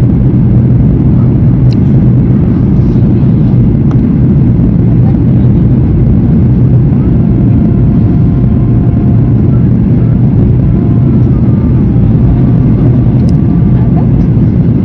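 Loud, steady rumble and roar of a Boeing 737's jet engines and rushing air, heard inside the passenger cabin on the approach to landing.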